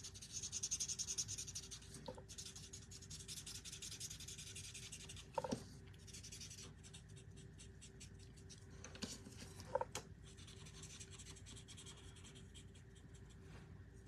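Alcohol marker rubbing back and forth on cardstock to blend colors together: a faint, quick scratching of strokes, with a few soft knocks along the way.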